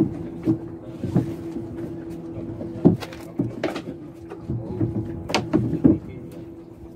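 Irregular knocks and taps on a small boat as a fishing net is hauled in by hand over the side, about eight in all, the loudest about three seconds in and past five seconds, over a steady low hum.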